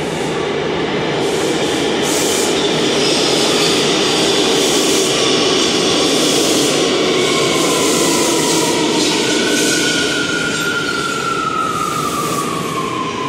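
New York City subway train running through the station: a loud, steady rumble with a regular clatter about once a second. A whine falls in pitch over the last few seconds.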